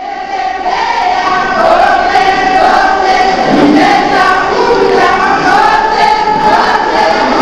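A group of voices singing together, choir-like, at a steady loud level.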